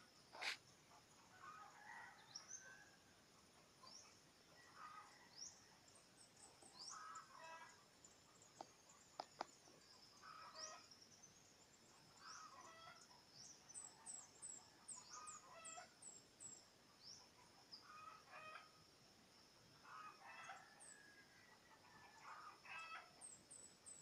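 Faint chickens clucking, short calls every second or two, with small birds chirping high above them.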